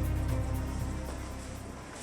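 Background music with a deep, steady bass, gradually fading out.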